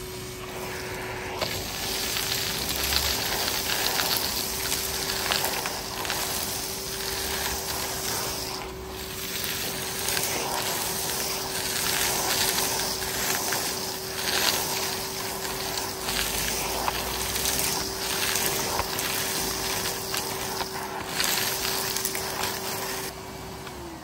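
Numatic Henry HVR200 cylinder vacuum, fitted with a 1200 W twin-flow motor, running with a steady whine while its floor tool sucks up loose debris, which crackles and rattles up the hose. Near the end the motor is switched off and its whine starts to fall.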